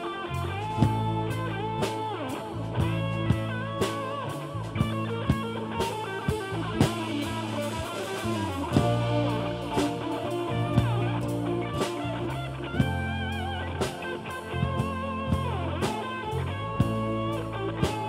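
Band music: electric guitar playing sustained, bent and wavering notes over bass and a steady drum beat.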